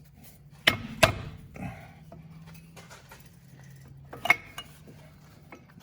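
Metal tools and brake caliper hardware clinking as they are handled: two sharp clinks close together about a second in and another a little after four seconds, with lighter ticks between, over a faint low hum.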